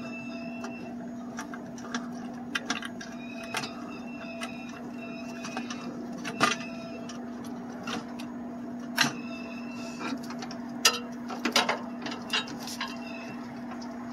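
Irregular clicks and plastic rattles of wiring harness connectors being unplugged from a vending machine's control board, over a steady low hum.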